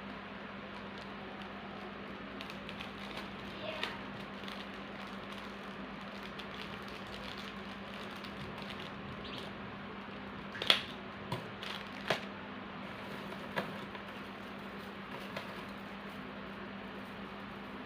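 Handling small items while packing bird leg rings: a handful of small clicks and taps, the loudest a cluster about eleven seconds in, over a steady hum.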